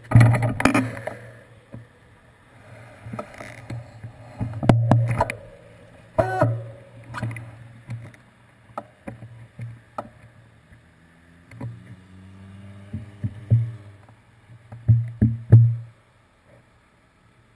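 Muffled road traffic passing through an intersection, coming in uneven swells of low rumble with a few small clicks. An engine note glides up as a vehicle pulls away about twelve seconds in.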